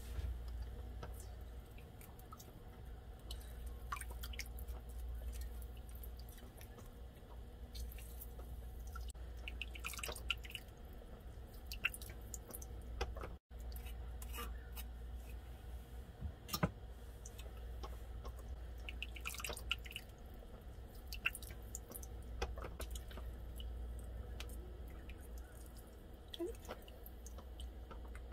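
Faint scattered clicks and small knocks of a knife and a lime being handled, with lime juice dripping into a pot of soup, over a steady low hum.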